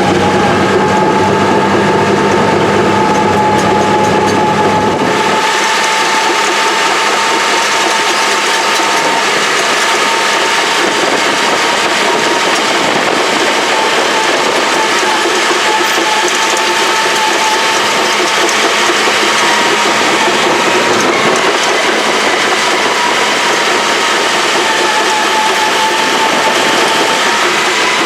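Steady mechanical whine with rattling clatter from old Caterpillar heavy equipment during a starting attempt. A deeper rumble underneath drops away about five seconds in.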